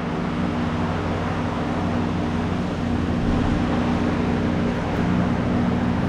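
Steady mechanical hum with a low, even drone that does not change.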